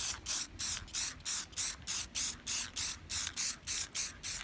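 Aerosol spray can of clear coat sprayed in quick short spurts, about four hissing bursts a second, to loosen up the wet paint.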